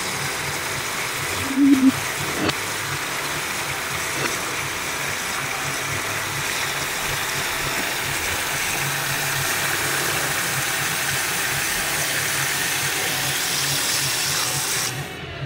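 Kitchen faucet running a steady stream of water into a sink, splashing onto a plate and a knife. A short low-pitched sound and a click come about a second and a half to two and a half seconds in. The flow cuts off abruptly near the end.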